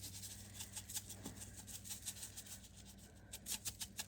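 Seasoning being shaken from a bottle onto potatoes and vegetables in a slow cooker: a faint run of quick, light rattling ticks that come faster and louder near the end, over a low steady hum.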